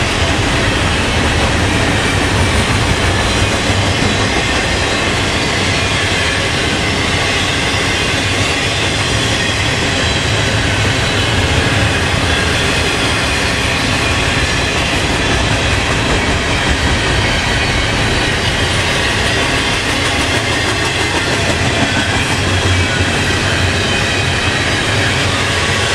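Intermodal freight train rolling past, a steady loud rumble of cars with wheels clacking over the rails.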